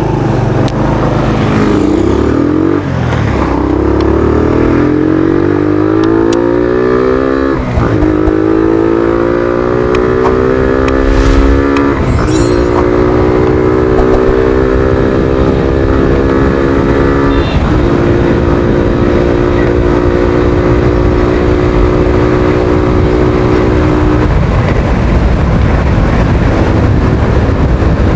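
Suzuki Thunder 125's single-cylinder four-stroke engine pulling a motorcycle through the gears: its pitch climbs, drops briefly at three gear changes, about 8, 12 and 17 seconds in, then holds at a steady cruising speed.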